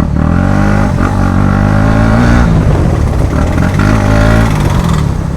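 KTM Duke motorcycle engine running with its exhaust removed, very loud and harsh, the engine note repeatedly rising and falling with the throttle.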